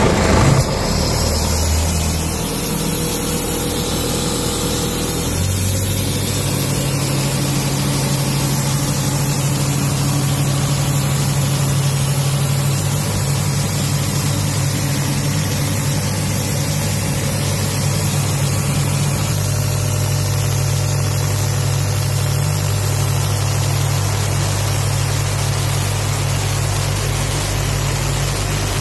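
Diesel engine of a 2015 Doosan P425/375 portable air compressor idling steadily at about 800 rpm. Its note shifts slightly about five seconds in, then holds.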